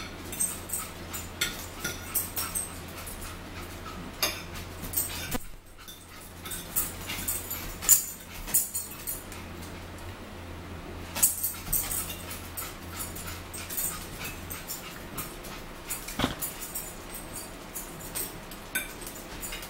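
Mealtime eating sounds: forks clicking and scraping on plates and chewing, many short irregular clicks and ticks. A low steady hum underneath stops about three-quarters of the way through.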